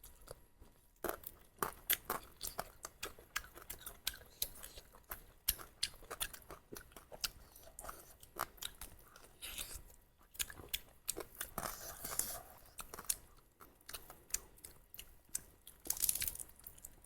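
Chewing and biting into spicy duck curry: a steady run of irregular crunches and clicks, with a few louder bites near the middle and near the end.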